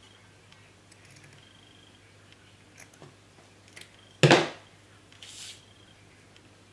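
Scissors snipping lace trim with a few faint, short snips, then a single loud, sharp knock about four seconds in, followed by a brief rustle.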